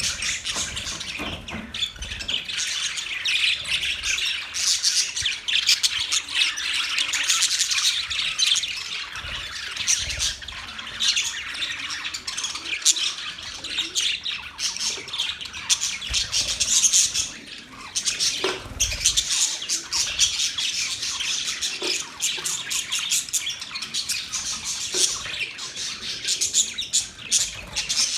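Budgerigars chattering and chirping without a break, a dense run of rapid high chirps and squawks from more than one bird.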